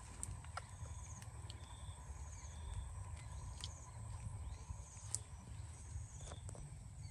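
Outdoor ambience: a steady low rumble, with several short high chirps and scattered small sharp clicks.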